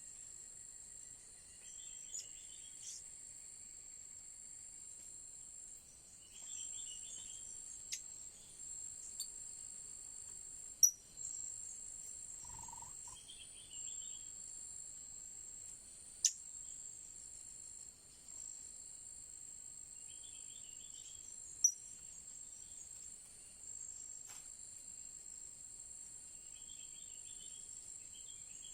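Steady high-pitched insect drone, cicadas or crickets, with a bird chirping in short bursts every few seconds. Three sharp, loud, high single calls stand out, about 11, 16 and 22 seconds in.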